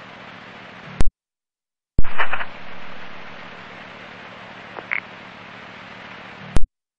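Police radio scanner static: the hiss of an open channel with no voice, cut off by a squelch click about a second in. After a brief silence another transmission keys up with a loud click and more hiss, ending with a second squelch click near the end.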